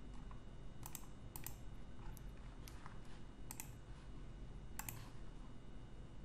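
Faint, scattered clicks from a computer keyboard and mouse: six or so single clicks at irregular spacing, a couple of them in quick pairs.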